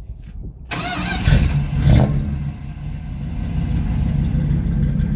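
1985 Dodge short-box pickup's carbureted engine starting about a second in, revving up twice, then settling into a steady idle.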